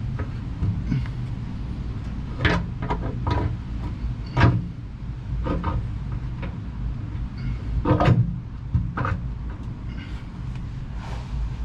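Irregular knocks and clunks of a deck panel being shifted and fitted into place, the loudest about four and eight seconds in, over a steady low hum.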